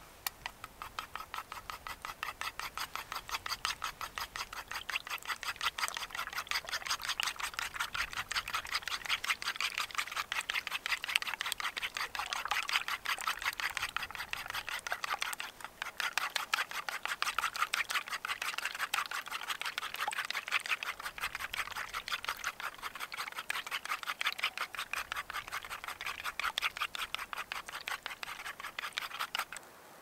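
A fork whisking raw eggs in a carved wooden bowl: rapid, steady scraping strokes of the metal against the wood, with a brief pause about halfway through.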